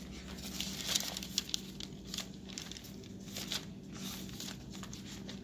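Paper pages of a Bible rustling and crinkling as they are leafed through to find a verse, in irregular short strokes over a faint steady hum.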